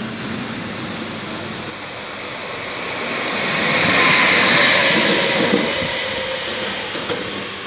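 Electric trains passing on station tracks. A freight train of car-carrier wagons is running past, then a red ÖBB electric locomotive passes close by. Its rushing noise builds to a peak about four seconds in and fades as it pulls away.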